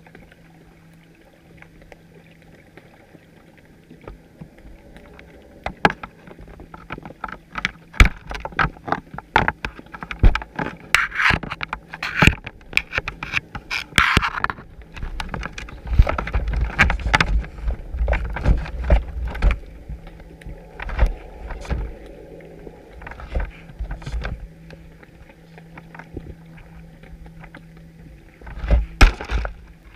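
Underwater clicks and knocks on a chum pot and the GoPro housing fixed to it, mixed with heavy low thumps, as feeding fish crowd and bump around it. The knocking starts a few seconds in and comes in dense clusters, over a faint steady low hum.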